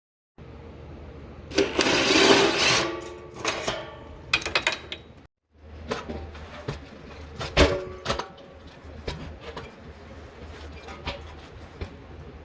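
Mechanic's tools working on fasteners under a car: metal clinks and knocks, with a louder rattling run about two seconds in and a sharp knock near the middle.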